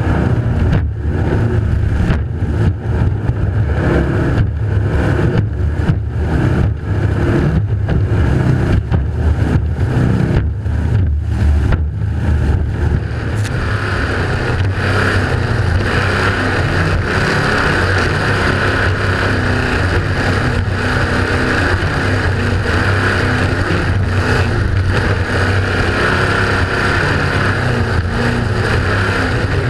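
Offshore racing powerboat at full speed heard from on board: a loud engine drone with rushing water and spray, the sound dipping briefly many times in the first half. About halfway through it changes to a steadier, hissier rush.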